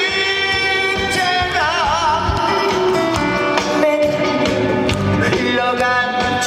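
Live trot song with a band: a singer holds long notes with a wide vibrato over the accompaniment.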